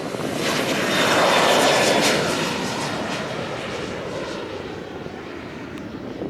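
Airliner's engines passing by: the engine noise swells to a peak about a second or two in, the pitch dropping as it goes by, then fades away.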